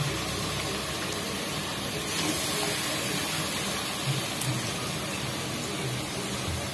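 Mutton pieces sizzling in oil and onion-tomato masala in an aluminium pressure cooker: a steady hiss.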